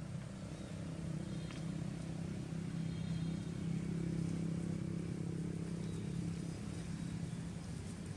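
A motor vehicle's engine running with a low, steady drone that swells about halfway through and eases off toward the end, like a vehicle passing by.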